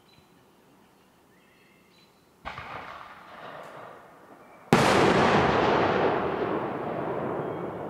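Two sudden booms, the second much louder, each trailing off into a long rumbling decay over a few seconds.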